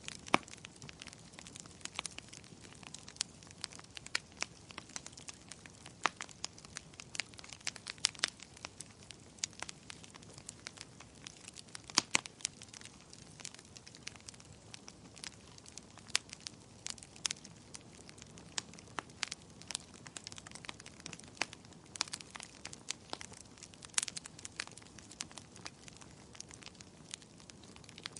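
Wood fire in a fireplace crackling, with irregular sharp pops and snaps over a low steady hiss.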